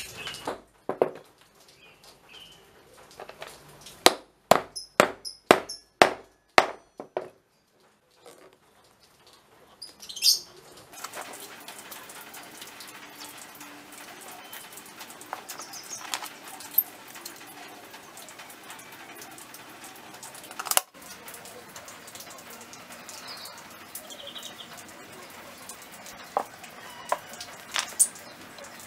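A hammer driving a small nail into a wooden block: about seven sharp blows in quick succession, a few seconds in. After that come light knocks and clicks of wooden toy parts being handled and fitted together, over a steady low hiss.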